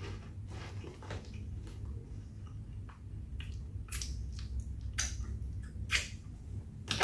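Cheese curls being chewed and a foil crisp packet crinkling as a hand reaches into it for more: a few short, quiet crackles spread across the seconds.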